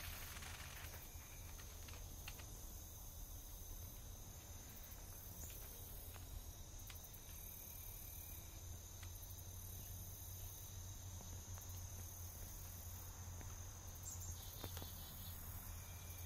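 Faint late-summer insect chorus in marsh vegetation: a steady high-pitched trill with a pulsing shimmer above it, over a low steady rumble and a few light ticks.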